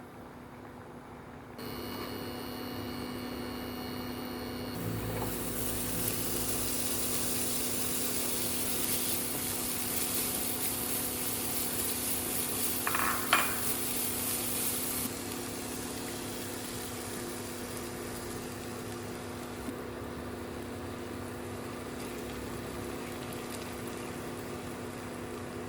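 Food sizzling in a frying pan, loudest for about ten seconds from about five seconds in, over a steady hum. There is one short knock about halfway through.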